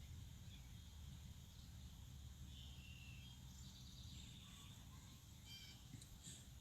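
Near silence with a low background hum and a few faint, short bird chirps, twice in quick clusters about two and a half and five and a half seconds in.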